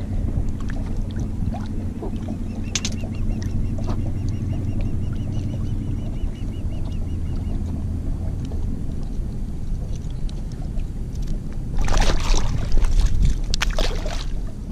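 Stingray splashing at the surface beside the boat as a hook is worked out of it, loudest in a flurry near the end, over a steady low rumble.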